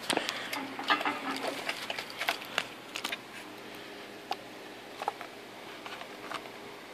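Handling noise of a plastic charging unit being picked up and turned over: a busy run of clicks, knocks and rustling for about three seconds, then a few scattered clicks.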